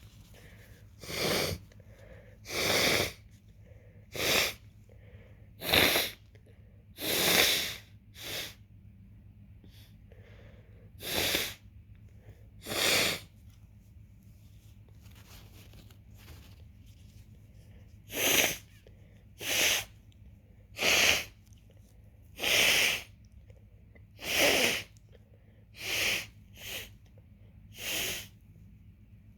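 A person with a runny nose from an early-stage head cold sniffing repeatedly. There are about sixteen short, sharp sniffs in two runs, with a pause of a few seconds in the middle.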